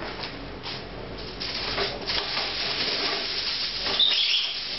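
Aluminium foil being handled and crumpled, a dense crackling rustle that thickens about a second and a half in, with a brief high squeak about four seconds in.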